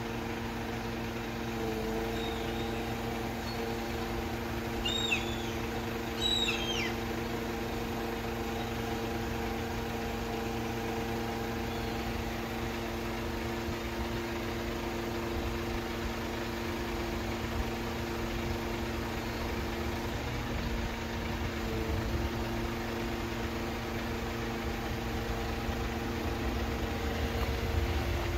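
Mercedes Sprinter 513's diesel engine idling steadily with an even hum. A couple of short high chirps come about five and six seconds in.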